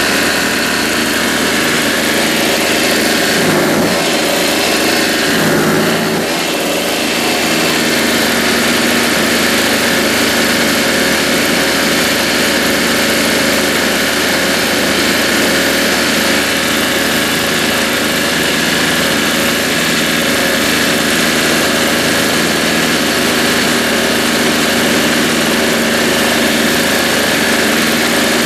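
Toro CCR Powerlite snowblower's Tecumseh two-stroke engine running steadily at speed, with a brief waver about four to six seconds in. Its governor control spring has been bent to raise the engine from about 4,000–4,100 to about 4,500 RPM, and it is running much better.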